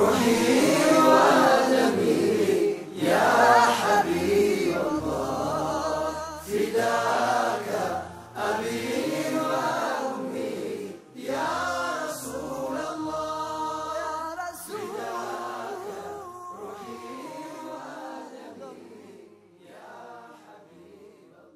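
Male vocal group singing an Islamic nasheed together in chorus, the voices fading away over the last few seconds.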